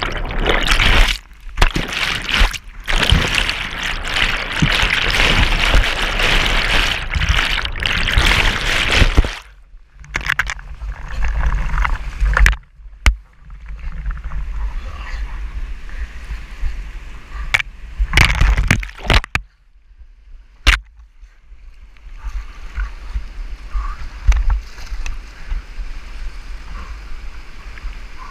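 Flooded whitewater rushing and churning close around a kayak as it runs rapids. The water is loud and dense for the first nine seconds or so, then quieter with a few sharp knocks, and settles into a steady rush of fast current near the end.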